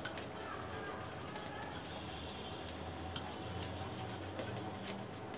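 Wooden rolling pin rolling out a round of maida dough on a round stone board: a steady rubbing with a few light clicks.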